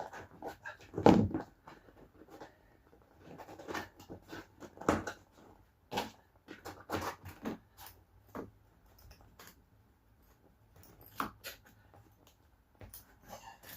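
Hand tools working on vinyl lino flooring in a van: irregular scrapes and clicks of a blade and edging tool scoring and pressing the lino, with a heavier knock about a second in.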